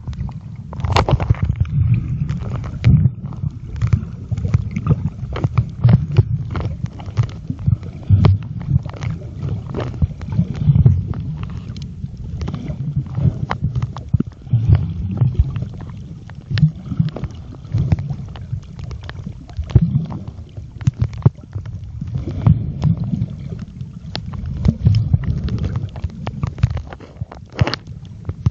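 Muffled underwater rumble and gurgling of moving water through a mobile phone's microphone, swelling and fading, with many sharp clicks and knocks throughout.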